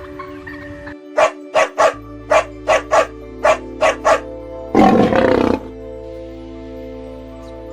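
An animal giving about nine short, sharp barks in quick succession, then one longer, rougher call, over steady background music.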